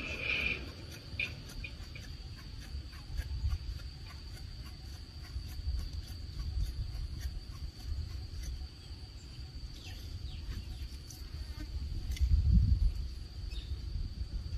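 Insects droning at a steady high pitch, over a low rumbling noise that swells briefly about twelve seconds in.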